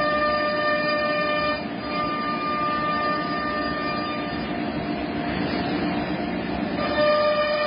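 CNC router spindle running with a steady, high whine. Around the middle the whine gives way to a harsher cutting noise, then returns near the end.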